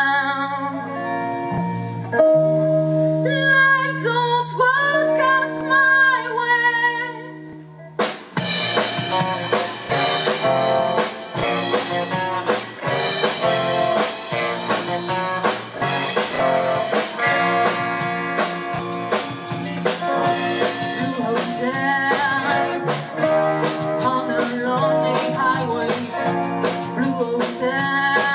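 Live rock band with a female singer: for the first several seconds her voice glides over held guitar and bass notes, then about eight seconds in the drums and the full band come in together.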